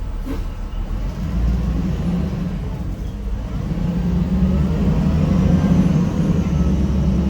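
Cummins ISM diesel engine of a 1993 Gillig Phantom transit bus running under way, heard from inside the bus with a steady low hum. The hum grows louder through the middle. A single click sounds just after the start.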